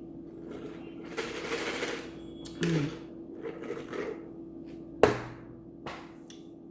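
Eating and food-handling noises close to the microphone: a rustle lasting about a second, then a few sharp clicks and taps, over a steady low hum.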